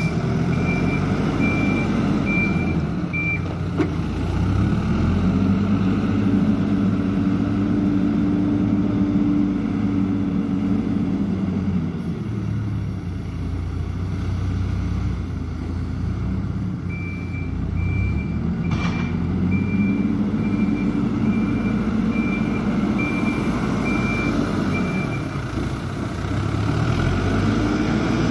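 A heavy vehicle's engine revving up, holding and dropping back twice, with a reversing alarm beeping evenly at the start and again during the second rev.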